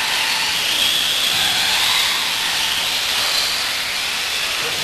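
Several electric radio-controlled off-road buggies racing on a dirt track, their motors and gears whining and rising and falling in pitch over a steady hiss.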